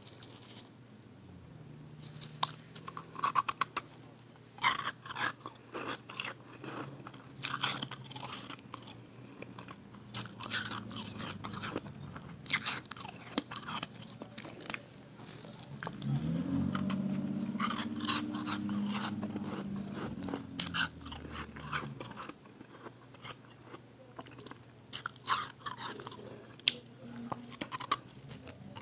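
Soft blended ice, pressed into small chunks, being bitten and chewed: irregular runs of crisp, wet crunches. A low hum runs under them through the middle for about six seconds.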